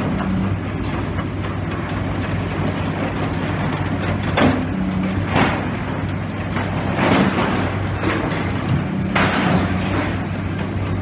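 Demolition excavator's diesel engine running steadily. About four sudden crashes of breaking and falling debris stand out, starting about four seconds in.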